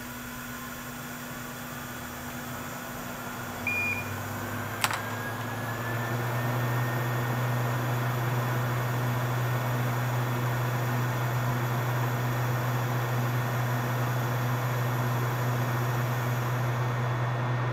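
Steady hum of a small electric fan motor on a soldering bench, its faint whine rising as it spins up over the first few seconds while the hum grows louder. A short beep a few seconds in and a sharp click just after.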